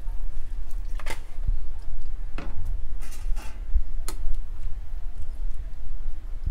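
A metal spoon stirring potato and pea curry in a kadhai, with a few sharp clicks as it knocks against the pan, over a steady low rumble.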